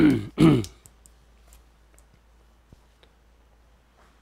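Two short, loud vocal sounds from a man, each falling in pitch, half a second apart at the start, followed by a few faint clicks.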